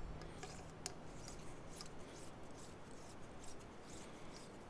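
Faint light metallic clicks and scraping as the thread mount of a Dead Air Wolverine PBS-1 suppressor is unscrewed by hand and handled.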